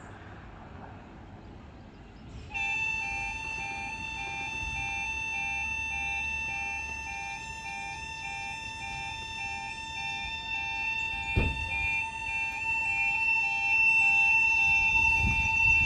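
Level crossing warning alarms start about two and a half seconds in, signalling that the crossing is closing for a train. Two loud electronic alarms sound together: one holds a flat steady tone and the other alternates between two pitches. A single thump comes about eleven seconds in.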